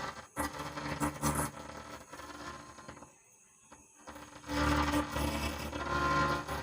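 Music played through an Ahuja BR 250M transistor power amplifier and its loudspeaker as the master volume is turned up, coming and going, with a near-quiet gap about three seconds in. The sound is muddy and unclear, the sound fault this amplifier has.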